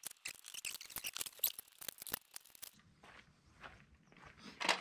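Metal parts of a portable boat trailer clicking and rattling as it is taken apart and handled, in a dense run of quick knocks. About three seconds in this drops to a faint low hum with a few scattered clicks and one sharper knock near the end.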